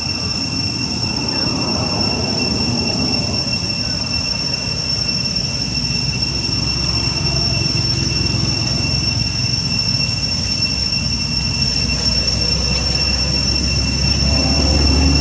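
Steady, high-pitched drone of insects in the forest, holding one pitch throughout, over a low rumble that grows near the end.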